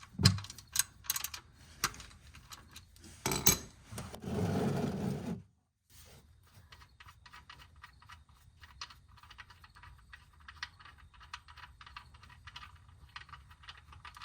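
Ratchet with a 13 mm socket clicking as the oil drain plug is loosened, with scattered knocks and a brief rushing noise about four seconds in, then a long run of quick, faint clicks.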